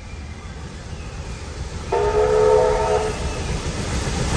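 Steam locomotive whistle sounding once for just over a second, a chord of several notes. Under it, the rumble of two steam locomotives approaching side by side grows steadily louder.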